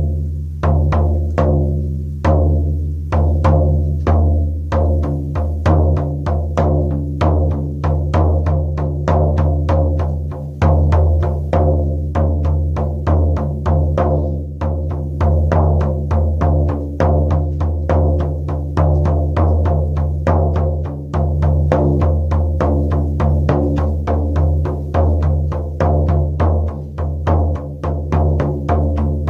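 Shaman frame drum struck with a beater over and over, each stroke leaving a deep, booming resonance. The strokes start slower and quicken within the first few seconds into a fast, even beat.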